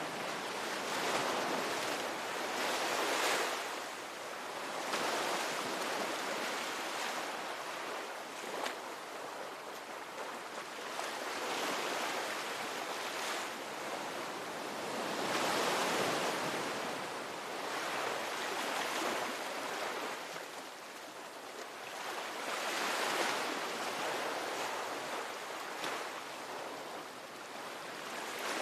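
Ocean waves breaking and washing on the shore, a continuous surf noise that swells and eases every few seconds.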